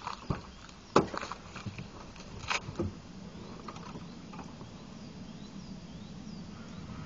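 Footsteps on gravel and the car's driver door being opened, with a few sharp clicks and knocks, the loudest about a second in. After about three seconds only a faint steady low hum remains.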